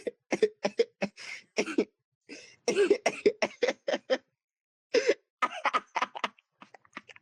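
A person's voice in a rapid string of short bursts, each cutting off sharply, with a pause of about a second in the middle.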